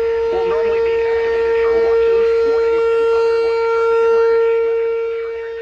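RM-127 outdoor warning siren sounding a steady tone for a tornado drill. The level swells to a peak about four seconds in and falls away near the end. Talk can be heard under it.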